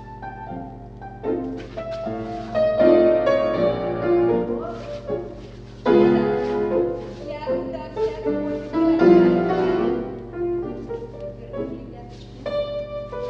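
Piano music played as accompaniment to a ballet barre exercise, a steady run of notes.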